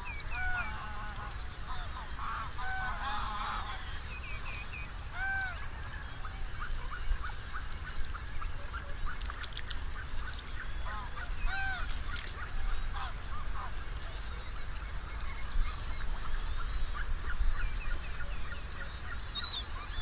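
A large flock of geese calling, with many overlapping honks near and far and no pause. Some louder single honks stand out above a dense background of distant calls.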